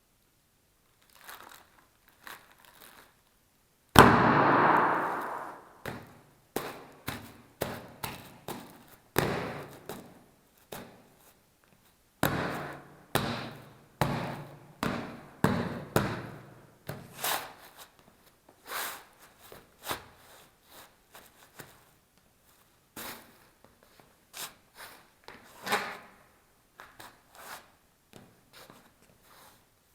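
Bubble wrap popping and crinkling in a long, irregular run of sharp pops. The loudest comes about four seconds in, and clusters of quicker pops follow.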